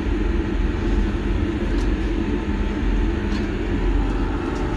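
Underfloor diesel engine of a Class 158 diesel multiple unit, running with a steady low rumble heard from inside the passenger saloon.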